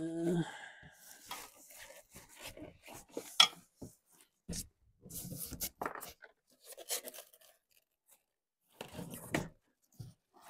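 Rustling and scraping of packaging wrap and cardboard, with irregular clicks and knocks, as an e-bike's front wheel is freed from the frame inside its shipping box. One sharp click about three and a half seconds in is the loudest sound.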